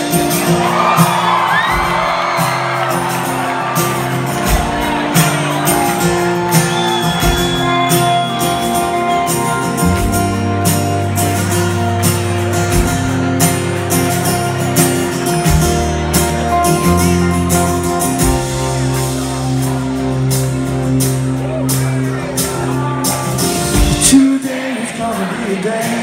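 Rock band playing live in a concert hall, with a steady drum beat, bass and guitars. The crowd shouts and whoops near the start. The band drops out briefly near the end.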